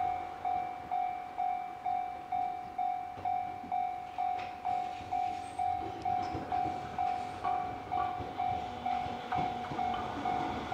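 Japanese railway level-crossing warning bell ringing steadily, a single tone struck about twice a second. An approaching train rumbles faintly underneath.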